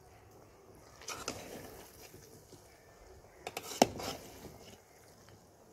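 Metal spatula scraping and knocking against the side of a large metal cooking pot as thick macaroni pasta is stirred, with a few short scrapes and one sharp clack a little under four seconds in.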